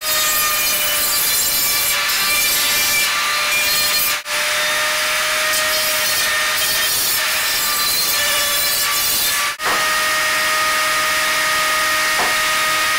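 Power grinder grinding the sharp cut edges of a halved stainless steel strainer: a loud, steady grinding hiss over a motor whine, breaking off briefly twice, about four and nine and a half seconds in.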